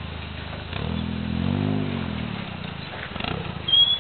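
Suzuki Jimny's engine idling, then revved up and let back down about a second in, as the 4x4 works over a deep hole. Near the end there is a brief high squeal, the loudest sound.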